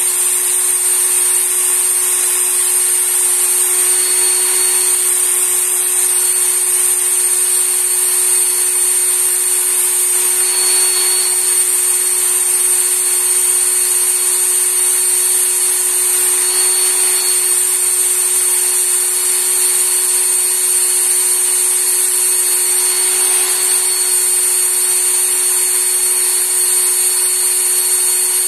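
Work Sharp knife sharpener's belt motor running steadily at top speed with a constant high whine, as a kitchen knife is drawn across the abrasive belt through the sharpening guide.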